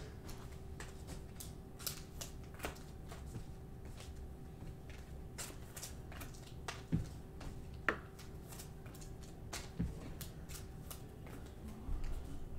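Trading cards being handled and laid onto stacks on a table: scattered soft taps and clicks of card on card, a few slightly louder, over a faint steady hum.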